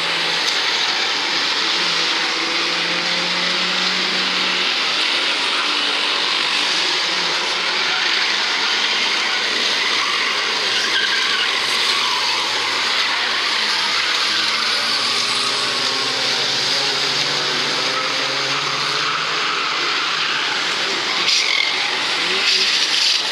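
Several banger racing cars' engines running around an oval track in a steady, dense mix, with engine notes rising and falling as the cars accelerate and lift off.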